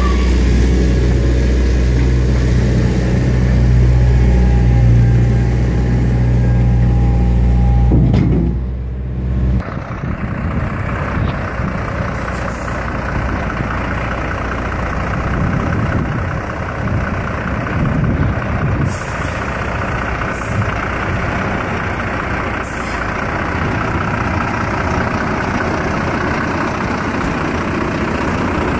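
Diesel engine of a skid-steer loader running steadily while its bucket tips. About nine seconds in it gives way abruptly to the rougher, steady sound of heavy diesel engines idling.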